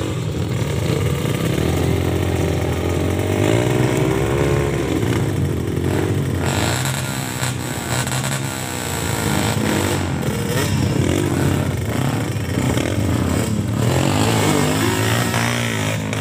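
Trail motorcycle engines revving hard and unevenly under load on a steep climb, the pitch rising and falling throughout.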